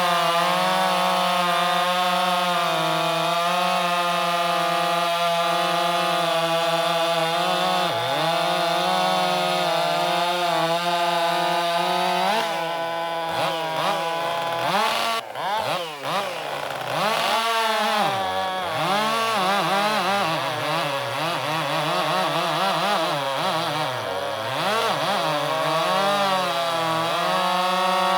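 Two-stroke chainsaw running at a steady high pitch at full throttle, then cutting wood from about twelve seconds in, its pitch dipping and recovering again and again as the chain loads in the cut.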